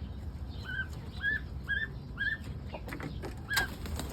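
Chickens released from the coop calling, a row of four short arched squawks about half a second apart and one more near the end, with a few sharp knocks in the second half.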